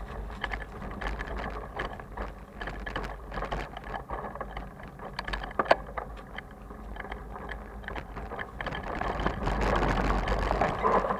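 Loaded touring bicycle rolling over a rough dirt trail, its frame and luggage rattling and clicking with every bump over a steady low rumble of tyres and wind. The noise grows louder near the end.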